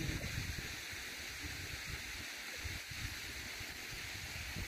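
Outdoor ambience of low, gusty wind rumble on the microphone over a steady high hiss, with faint water sloshing around a man wading in a pond.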